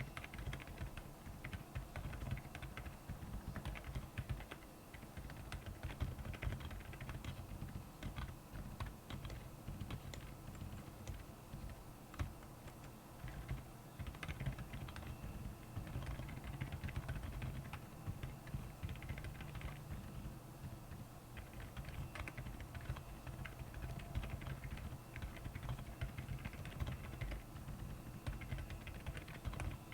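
Royal Kludge R75 mechanical keyboard with Akko Silent Penguin tactile switches being typed on in a steady, fast stream of keystrokes.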